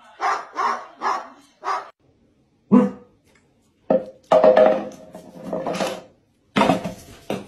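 Dogs barking: a quick run of short barks, a pause, then a single loud bark followed by a longer stretch of barking and a few more barks near the end.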